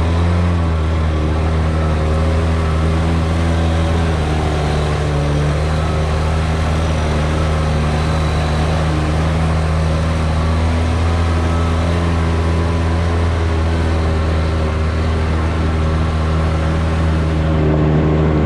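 Polaris RZR side-by-side engine running at a steady, held speed under a constant rushing noise, its note changing slightly near the end.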